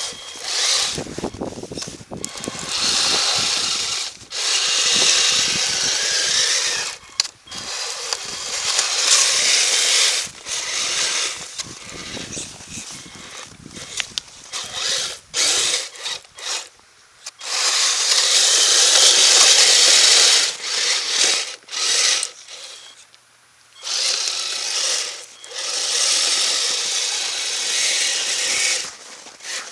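Kyosho Blizzard radio-controlled snowcat's electric motor and geartrain whining in repeated bursts that start and stop as it drives its tracks and blade into packed snow, struggling.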